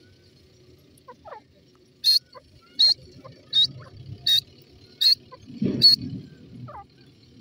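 Grey francolin calling: six short, sharp, high-pitched notes, evenly spaced about three-quarters of a second apart, starting about two seconds in.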